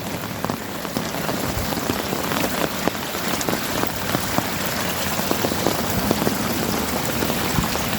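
Steady rain falling, a dense even patter with many sharp individual drop hits.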